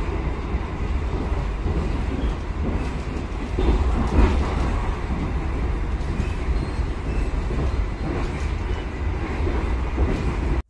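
A moving passenger train heard from inside the carriage: the steady low rumble of the wheels and running gear on the track, with a slightly louder patch about four seconds in.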